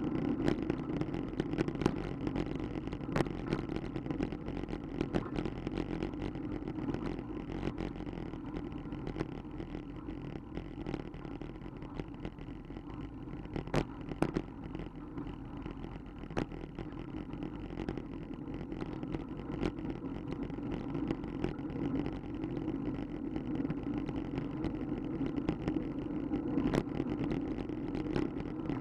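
Wind buffeting the microphone and wheels rolling on a cracked concrete path: a steady rumble with frequent short knocks and rattles as the wheels cross cracks and slab joints.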